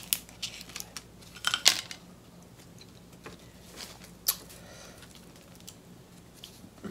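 King crab leg shell being cracked and pulled apart by hand: a few sharp snaps in the first two seconds, then scattered softer clicks as the meat is drawn out.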